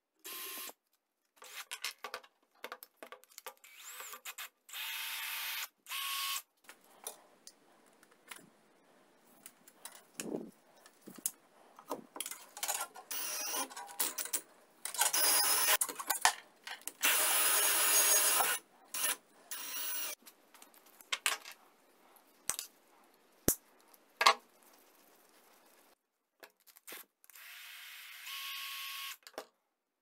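Cordless drill running in a series of short bursts, a steady motor whine each time, drilling through a wooden block and then spinning a threaded rod to wind wire into a coil spring. Sharp clicks and knocks of handling between the runs.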